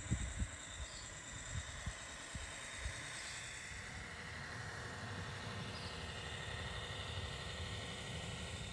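Scaleart RC scale Unimog model truck driving through long grass, its small electric motor and gearbox giving a steady whine that drifts slowly in pitch. A few low thuds come in the first second.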